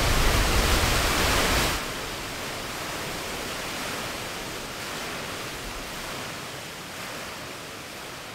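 Large fountain's water jet rushing and splashing, a steady hiss. It turns quieter about two seconds in, then slowly fades.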